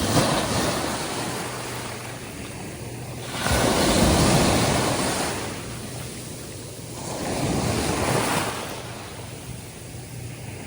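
Atlantic Ocean surf breaking and washing up a sandy beach, in three surges: one at the start, the loudest about four seconds in, and a smaller one around eight seconds.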